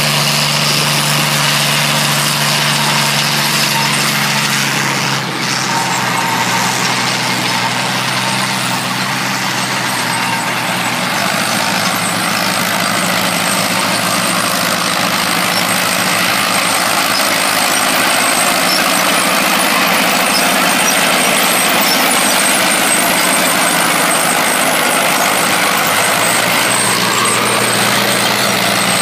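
Diesel engines of vintage Fiat tractors running steadily under load while pulling ploughs, with no break in the engine sound.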